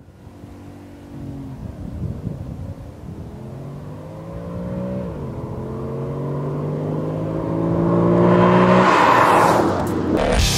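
Porsche Panamera GTS's naturally aspirated 4.8-litre V8 accelerating hard as it approaches and passes, the engine note climbing through a gear, dropping at an upshift about five seconds in, then climbing again. Near the end it sweeps past at its loudest, with a rush of tyre and exhaust noise, and falls away.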